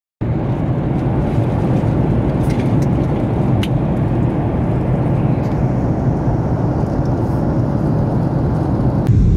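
Steady cabin noise of a Boeing 737 in flight, the rush of air and engines heard from a seat in the cabin, with a few faint clicks as a phone is handled in the seatback phone holder.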